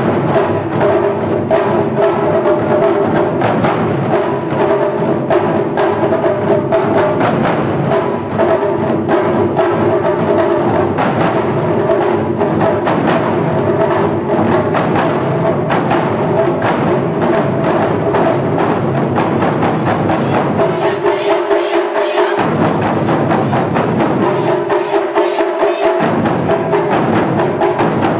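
Wadaiko ensemble of Japanese taiko drums playing fast, dense rhythms, with steady pitched tones held above the drumming. The deep drums drop out briefly twice, around two-thirds of the way through and again shortly after.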